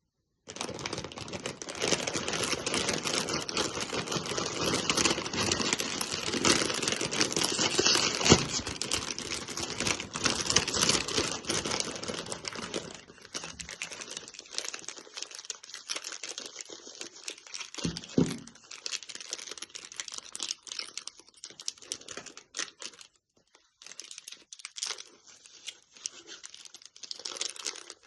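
Crinkling and tearing of a Chupa Chups lollipop's wrapper, dense and steady for about thirteen seconds, then quieter, scattered crackles.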